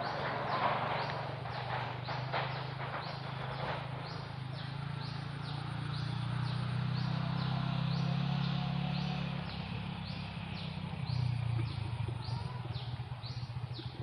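A bird calling over and over, a short falling high chirp about twice a second, over a steady low hum that grows louder in the middle and fades again.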